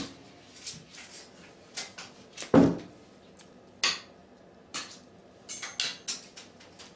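A small hard object clattering and skittering against a bathtub as a cat bats it around with its paws: a dozen or so irregular clicks and knocks, with one louder thump about two and a half seconds in.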